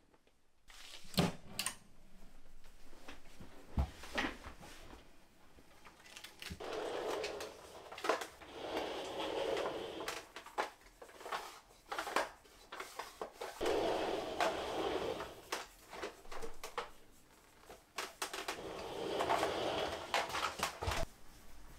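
Handling sounds from a white plastic rolling book trolley and the stationery in it: scattered clicks and knocks, with three longer stretches of rustling and rattling as it is moved and arranged.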